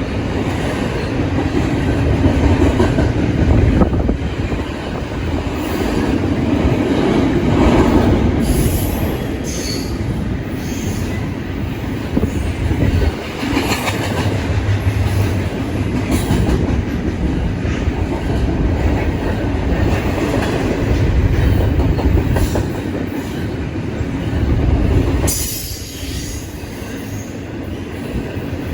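A train rolling past: a loud, continuous rumble of cars on the rails with clicking over the rail joints, and brief high-pitched wheel squeals a couple of times, about nine seconds in and again near the end.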